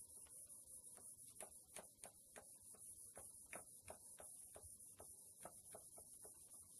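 Marker writing being wiped off a whiteboard by hand: faint, irregular short rubbing strokes, about two to three a second, over a steady hiss.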